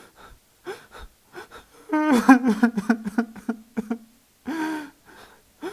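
A young man sobbing: short gasping breaths and sniffles, with a longer wavering, pulsing cry about two seconds in and a shorter one about a second later.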